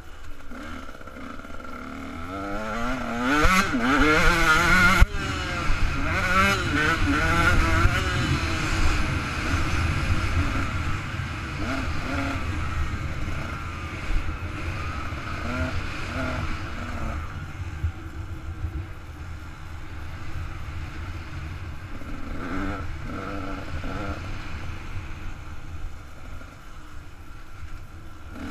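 KTM 125 SX two-stroke single-cylinder engine revving hard, its pitch climbing and falling through the gears, with a sharp knock about five seconds in. It then settles to lower, steadier running with a few short blips of throttle, over the rumble of wind on the bike-mounted camera.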